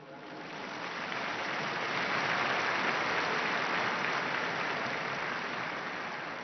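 A large crowd applauding, swelling over the first two seconds and then slowly dying away.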